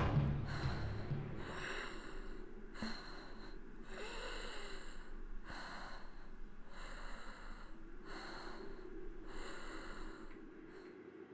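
A person's heavy, ragged breathing, about one breath every second, slowly fading. Low music stops about one and a half seconds in.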